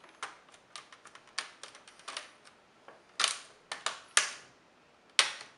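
Plastic screen bezel of an ASUS U31JG laptop being pressed back onto the lid, its clips snapping into place: a run of irregular sharp clicks, the loudest a little past three, four and five seconds in.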